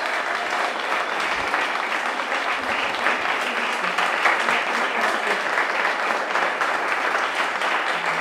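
Audience and performers applauding steadily after a sung performance.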